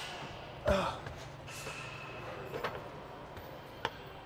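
Loaded barbell knocking in the squat rack as the lifter sets up under it: one loud metal knock about a second in, a lighter click near the end, over a steady gym hum.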